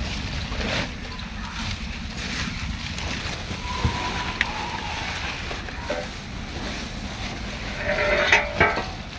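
Woven plastic feed sack rustling and being handled close to a phone microphone as cows feed on rotis from it, with rough handling and wind noise on the microphone. A brief louder pitched sound comes near the end.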